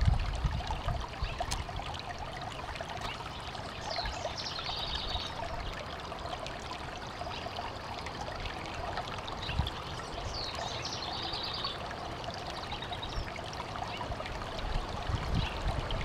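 Shallow rocky mountain stream running steadily over and between boulders, a continuous trickling rush of water. A short high trill sounds twice over it, about four seconds in and again near eleven seconds.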